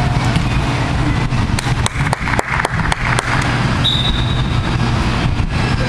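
Steady low rumble of an indoor soccer arena during play, with a quick run of sharp knocks and taps from about a second and a half to three seconds in, and a brief high tone near four seconds.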